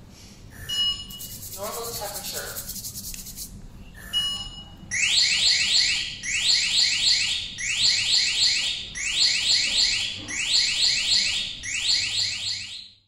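K9 Pro temperature-measuring dispenser beeping as it takes a reading, with a short hiss between two beeps. It then sounds its high-temperature alarm: groups of four quick rising chirps, repeated about every second and a half, set off by the abnormal 38.0 °C reading.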